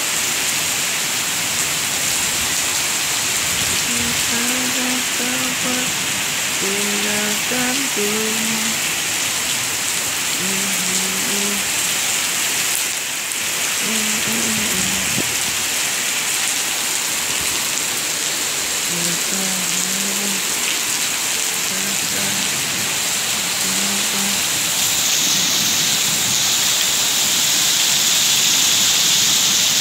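Heavy rain pouring down on paved ground, a steady dense hiss that grows heavier about 25 seconds in.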